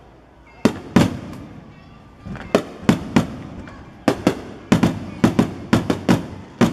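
Aerial fireworks shells bursting overhead as a string of sharp bangs, each with a short rumble after it. The bangs start about half a second in, are spaced out at first, and come thick and fast in the second half.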